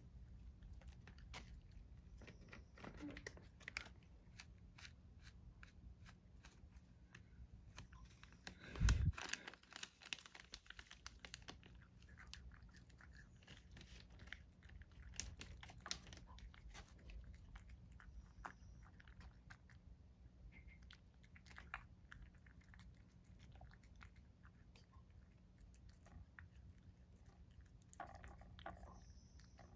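Domestic cat eating chopped carrot and dried shiitake topped with bonito flakes: faint chewing and crunching with many small clicks. A single louder thump comes about nine seconds in.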